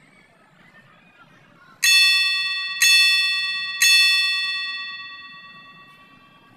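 Workout app's countdown chime: three identical bell-like dings about a second apart, marking the last seconds of the exercise timer, the last one ringing out and fading slowly.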